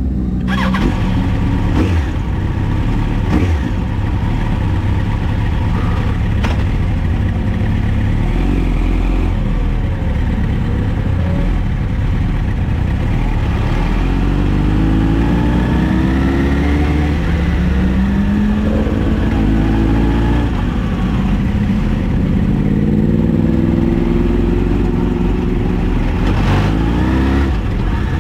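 A motor vehicle's engine running under a heavy low rumble, its pitch rising again and again as it accelerates. There are a few sharp clicks in the first few seconds.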